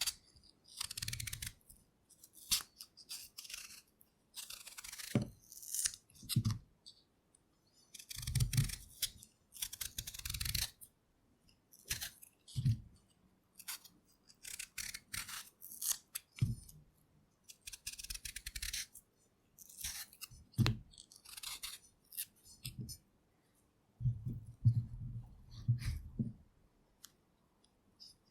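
Potatoes being peeled with a knife: irregular short scraping strokes of the blade through the skin, about one every second or two, several with a dull low knock of handling.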